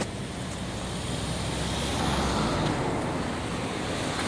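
Outdoor background rumble and hiss, swelling about two seconds in and easing off again.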